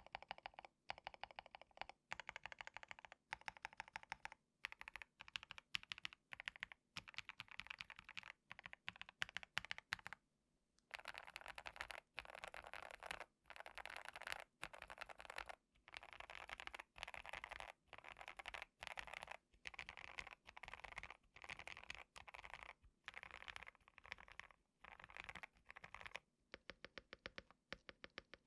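Typing on a KBD67 Lite mechanical keyboard fitted with frankenswitched Epsilon switches and modded with case foam, PE foam and tape mod: a fast run of key clacks, with a short pause about ten seconds in before the typing resumes more densely.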